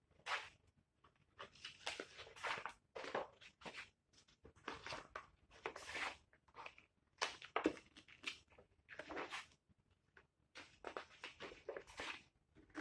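Pages of a wallpaper sample book being leafed through by hand: a quick, irregular run of rustling swishes and flaps as the thick paper sheets slide and turn.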